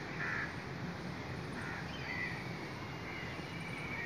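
A few short bird calls, about four of them, from the park trees over a steady background hiss of outdoor air.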